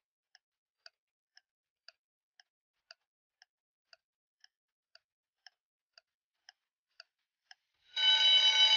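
Countdown-timer clock-tick sound effect, faint ticks about twice a second, ending near the end in a loud buzzer tone as the timer reaches zero.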